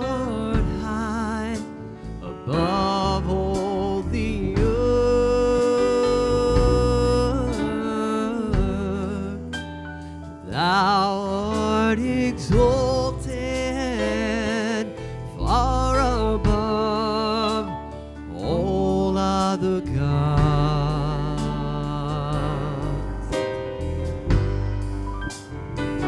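Live gospel worship music: a singer holding long notes with a wavering vibrato over a band's sustained accompaniment.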